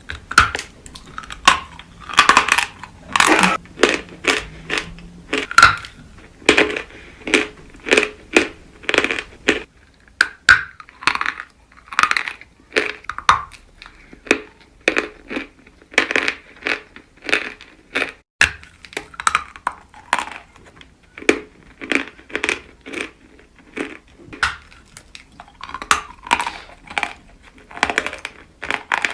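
Natural white chalk being bitten and chewed close to the microphone: a steady run of crisp, dry crunches, about two a second.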